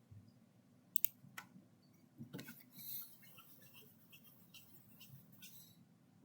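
A few sharp clicks, two close together about a second in and another shortly after, then a brief rustle and scattered faint clicks.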